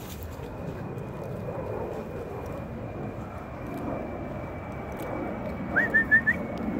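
Airplane passing overhead, a steady low rumble that slowly swells. Four short high chirps near the end.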